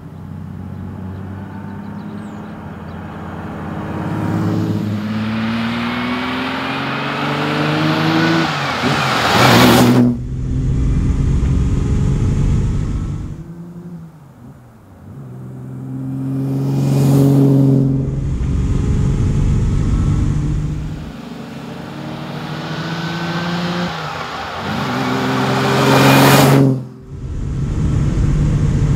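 Ferrari 365 GT 2+2's 4.4-litre V12 accelerating hard, its note climbing steadily to high revs in long pulls. Two of the pulls break off suddenly, and the engine peaks loudly once about halfway through. Low rumbling road noise fills the stretches between.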